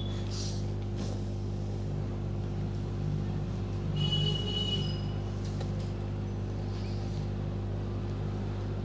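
A steady low electrical hum, with a brief high-pitched tone for about a second about four seconds in.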